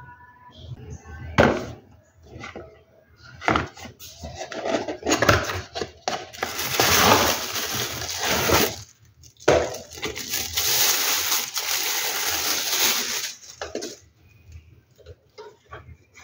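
A cardboard toy box being handled and opened with a few knocks and taps, then a plastic bag crinkling loudly for about eight seconds, with a short break midway, as the toy is pulled out and unwrapped. Light plastic clicks and handling near the end.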